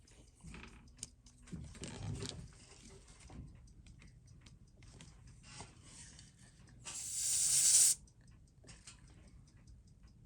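Small clicks and taps of tools and watch parts being handled at a watchmaker's bench, then a loud hiss lasting about a second, about seven seconds in.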